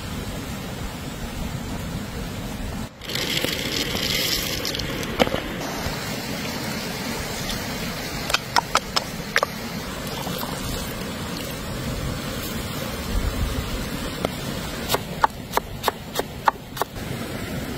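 Steady rush of a creek under everything. A few light knocks around the middle, and near the end about eight quick chops of a cleaver through chives onto a wooden cutting board.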